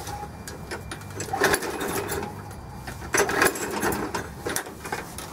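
Cold air-cooled engine of a Craftsman push mower being cranked on its recoil pull-starter: a rattling whir in separate bursts, each about a second long, as it is hard to start in the cold.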